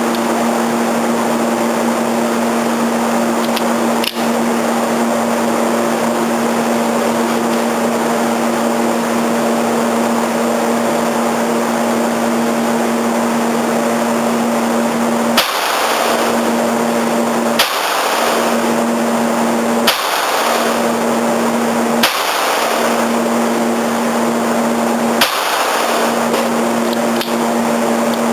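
A steady hum, then five sharp .22 rimfire pistol shots starting about halfway through, two to three seconds apart, each with a short ringing tail.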